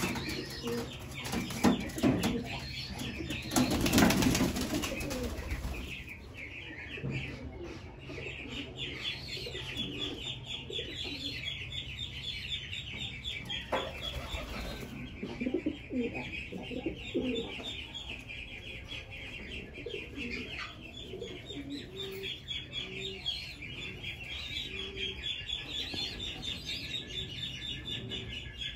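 Domestic pigeons on the ground: wing flaps and scuffling in the first few seconds, then short low coos now and then. A continuous fast, high-pitched chirping runs underneath.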